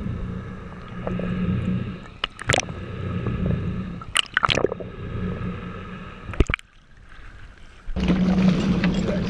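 Muffled underwater sound heard through a camera held below the surface: gurgling water and a steady low hum, broken by a few sharp splashes as the water churns. About eight seconds in it changes to open air: louder rushing wind and water with the low hum still under it.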